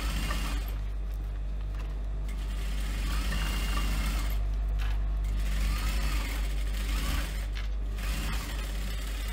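Global industrial sewing machine stitching a faux-leather seam in short runs with brief pauses, over the steady low hum of its motor.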